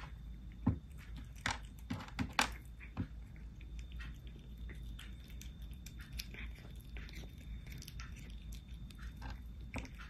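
Tortoiseshell cat eating from a stainless steel bowl: wet chewing with sharp clicks and smacks. Several louder clicks come in the first three seconds, then lighter ones.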